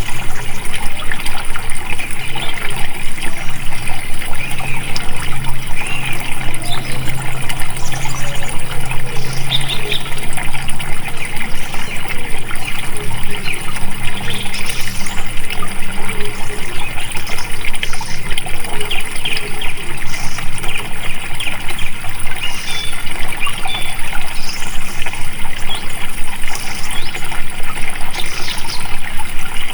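Flowing water trickling and splashing steadily, with a faint low hum for several seconds in the first half.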